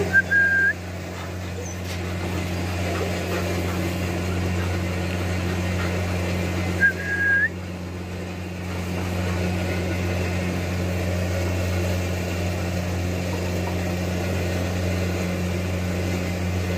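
Two short single-note whistles, one right at the start and one about seven seconds in, each flicking upward at the end, over a steady low hum.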